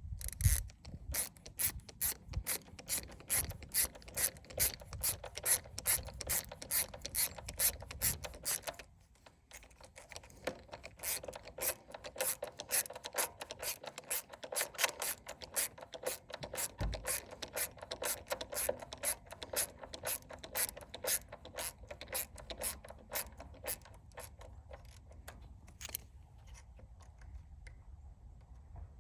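Ratcheting screwdriver clicking in a rapid, even run of ratchet clicks as screws are driven in. The clicks stop for about a second, then go on faster and thin out near the end.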